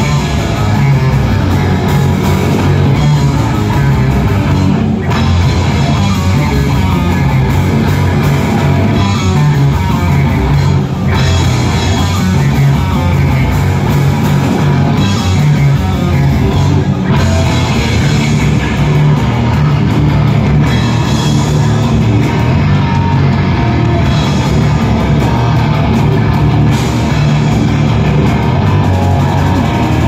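Live death metal band playing loud and without a break: distorted electric guitars over a pounding drum kit.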